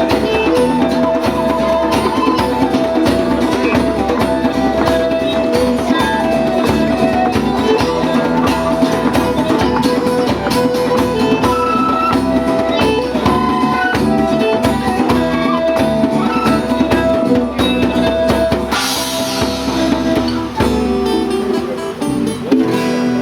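A live band playing an instrumental passage of a song, with guitar and drum kit, a cymbal-like swell about nineteen seconds in, and the music thinning out near the end.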